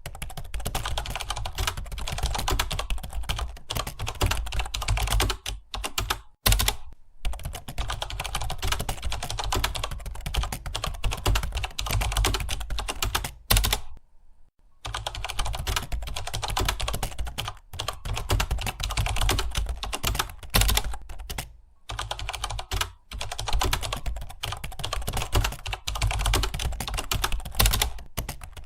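Fast, continuous typing on a computer keyboard, keys clicking in a rapid run that stops briefly about a quarter of the way through and again about halfway.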